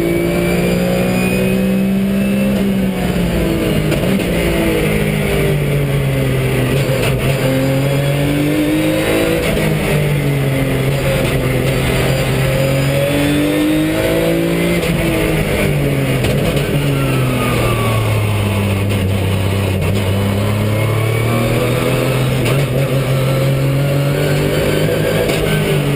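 Porsche 911 GT3 Cup's flat-six racing engine heard from inside the cabin, its revs repeatedly climbing and dropping through gear changes. In the last several seconds it runs at lower, steadier revs.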